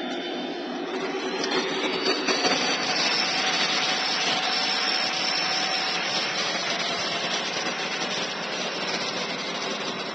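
Lionel O-gauge model train running past on three-rail track: a steady rushing rumble of wheels and motor that builds over the first couple of seconds as it draws near.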